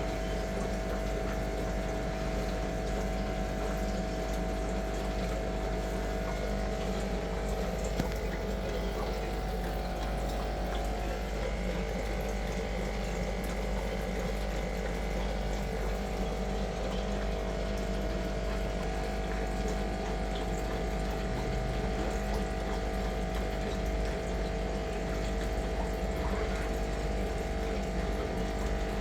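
Steady machine hum: a few fixed tones over an even hiss that holds without a break.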